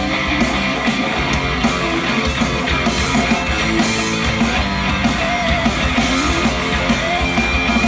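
Live rock band playing an instrumental passage: electric guitar, bass and drums with a steady beat, no vocals.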